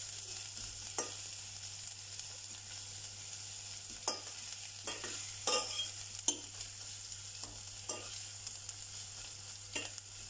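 Carrot, onion and spices sizzling in melted butter in a stainless steel pot, with a spoon stirring and now and then knocking and scraping against the pot in sharp short clicks.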